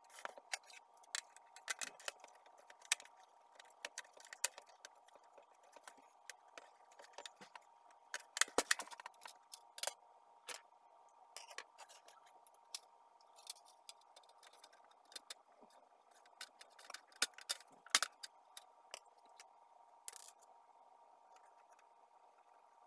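Plastic casing parts and top cover of a Pantum P2516 laser printer being handled and fitted together: scattered clicks, knocks and light scrapes, loudest in a cluster about eight seconds in and again near eighteen seconds.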